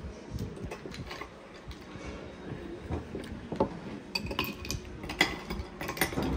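Metal spoon clinking against a ceramic bowl and glasses at a dining table: scattered light clinks, a few of them ringing briefly.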